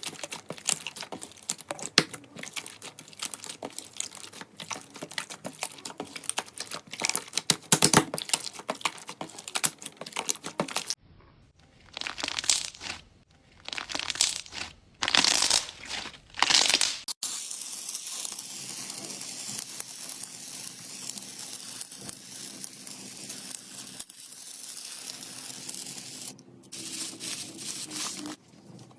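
Slime being handled close to the microphone, with no music. First comes a dense run of sharp crackles and pops. About a third of the way in the sound changes to four separate squishing swells. Past halfway a steady crinkling hiss takes over.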